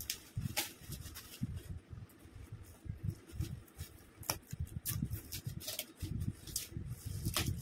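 Red foil gift wrapping being cut with scissors and peeled off a boxed present by hand: rustling and crinkling paper and plastic, with scattered sharp clicks and irregular low knocks from handling the box on the table.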